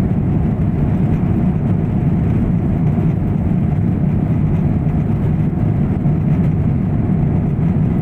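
Steady low cabin noise of a twin-engine jet airliner in flight: engine and airflow drone heard from a window seat over the wing.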